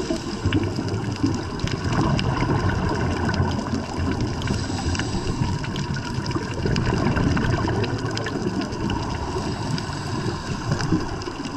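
Underwater ambience picked up by a diving camera: a steady, rumbling rush of water noise with scattered faint clicks.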